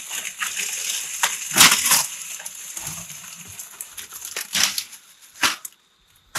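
Dry leaves and brush rustling and crunching as they are handled, with a few sharp snaps, then near silence near the end.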